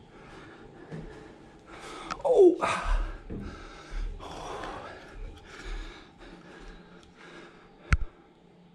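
A man panting and gasping for breath, out of breath from climbing steep stairs, with a loud falling groan about two seconds in. A single sharp click comes near the end.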